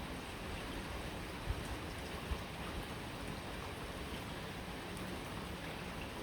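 Steady rain falling, a dense even hiss of drops, with two brief low thumps about a second and a half and two seconds in.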